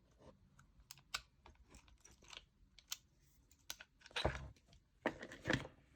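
Tubular lock pick being pushed into and twisted in a locking tow-hitch pin: scattered small metal clicks and scrapes, then two louder bursts of clicking and rattling about four and five seconds in as the lock is worked open.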